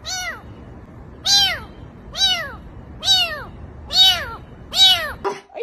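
A small kitten meowing repeatedly, six high meows about a second apart, each rising and then falling in pitch.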